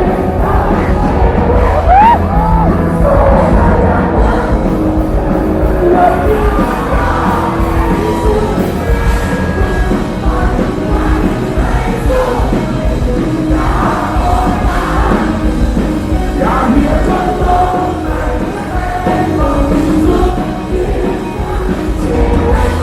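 Live rock band playing loudly, with a singer and a heavy bass-and-drum low end.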